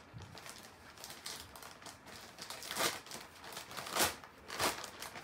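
Packaging crinkling and rustling as a mail-order package is opened by hand, with three louder crinkles in the second half.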